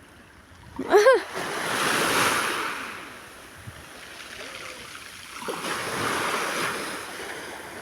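Sea waves washing in twice, each swell rising and falling over about two seconds. A brief, loud, high-pitched cry from a person comes about a second in.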